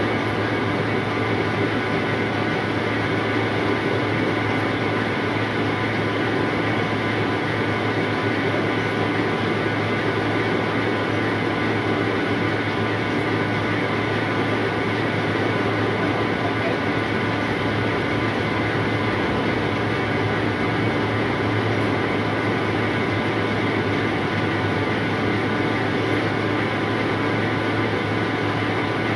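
Rice seed sorting machine running steadily: its motor and blower give a loud, unbroken mechanical hum.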